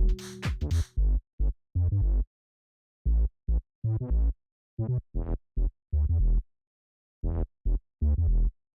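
Electronic background music in a stripped-down passage: short, chopped bass and drum-machine hits broken by brief silences, with the high end dropping out after about a second.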